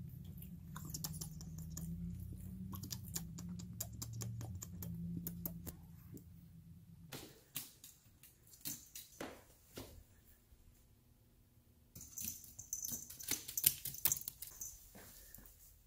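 A chihuahua's claws clicking and tapping on bare hardwood stairs as it walks, in light irregular clicks with a denser run of sharper ones near the end. A low wavering hum runs under the first six seconds.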